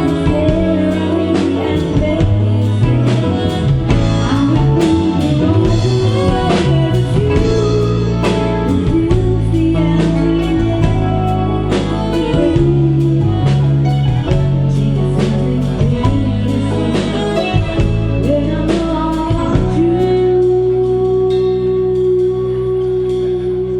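Live wedding band playing a song with singing, guitar, bass and drum kit to a steady beat; about 20 seconds in the drums stop and the song ends on a long held note over a sustained chord.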